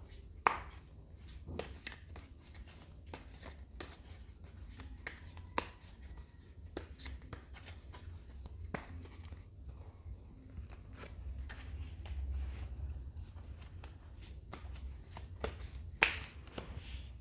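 Tarot cards being handled and laid down: scattered soft clicks and taps, with a few sharper ones, over a low steady hum.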